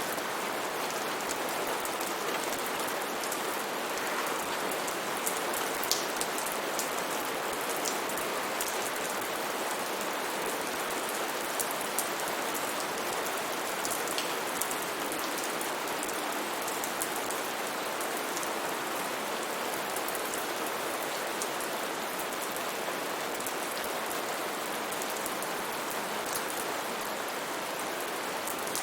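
Steady rain falling, an even hiss with many individual drops pattering and ticking on a surface.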